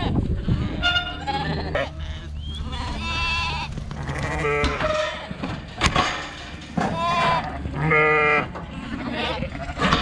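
Dohne × White Suffolk lambs and ewes bleating in a drafting race, about five separate calls, some with a wavering quaver. There is a single sharp knock a little past halfway.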